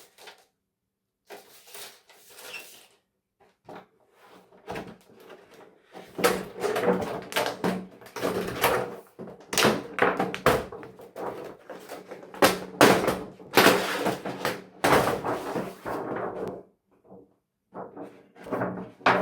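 Parts of a broken television being pulled apart and handled: repeated knocks, clatter and thunks of plastic and metal pieces. A few scattered knocks come first, then a dense run of clatter through most of the second half.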